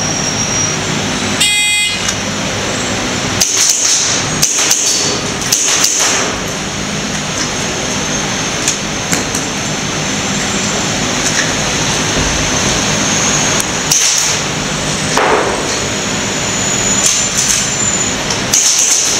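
A shot timer's start beep about a second and a half in, then a quick string of pistol shots a couple of seconds later and more shots near the end, over a steady loud background hiss.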